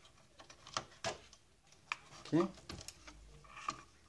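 A handful of sharp, scattered plastic and metal clicks as the old door microswitch is worked free of its mount in the plastic grinder housing of a Saeco Royal coffee machine.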